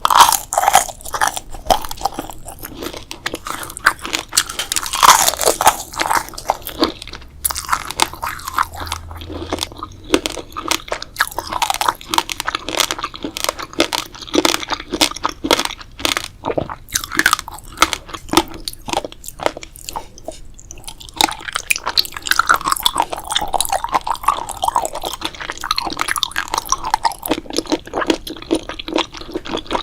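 Close-miked eating: a person biting and chewing crunchy food, with a rapid, irregular run of crisp crunches and some wetter, squishy chewing between them.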